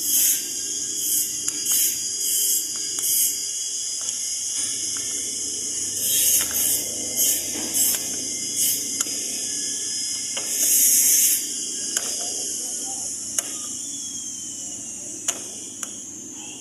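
Compressed-air blow gun blowing out a distributor cap in about a dozen short hissing bursts, with a longer blast near the middle. A few sharp clicks follow later.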